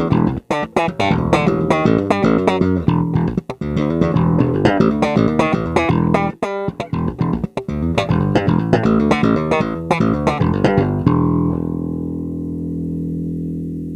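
Epiphone Thunderbird bass played on its bridge pickup: a quick run of plucked notes, then about eleven seconds in a final note is left ringing.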